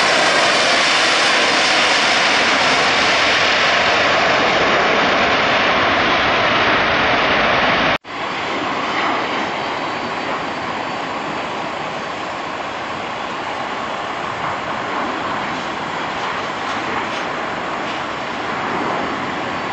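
Loud, steady jet engine noise from an airliner moving past close by, cut off suddenly about eight seconds in. Then comes quieter, steady jet engine noise from a twin-engine narrowbody airliner on final approach to land.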